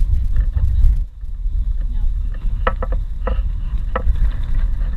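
Loud, low rumbling noise that drops away briefly about a second in, with a few short, sharp sounds in the middle.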